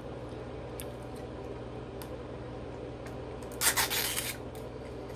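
A small toy wrapper rustling and crinkling as fingers pull it open, in one short burst a little past halfway, with a few faint ticks of handling before it.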